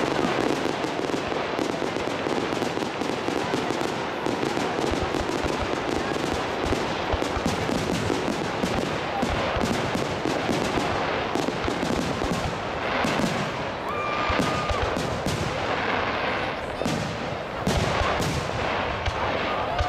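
Aerial fireworks going off in quick succession: a near-continuous barrage of shell bursts and crackling with no real pause.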